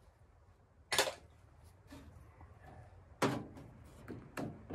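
Three sharp knocks, about a second in, a little past three seconds and near the end, with lighter clicks between: tools and parts being handled and set down on a car trunk lid.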